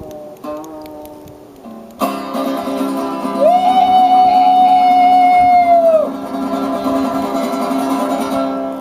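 Guitar music: picked single notes, then about two seconds in a chord rings out and a long held high note sustains for a few seconds before sliding off, the loudest part.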